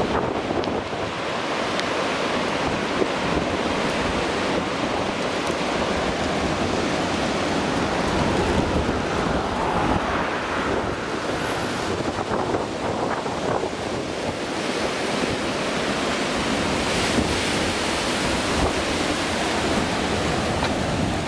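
High winds of a strong thunderstorm cell: a steady, loud rushing with wind buffeting the microphone and a few sharp ticks.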